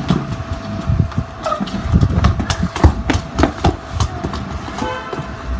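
Irregular knocks and taps of a football bouncing and footsteps on a paved stone patio, over a steady low rumble.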